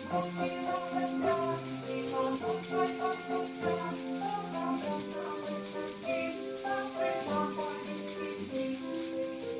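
Instrumental music playing: a light, simple melody of clear held notes at an even pace.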